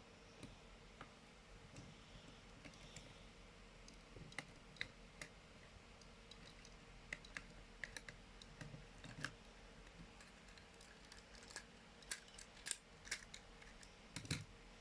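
Small hard plastic clicks and clacks of an Optimus Prime reissue toy being handled, its parts knocking and snapping. They come sparsely at first, grow more frequent after a few seconds, and are busiest near the end, where one lands with a dull thud.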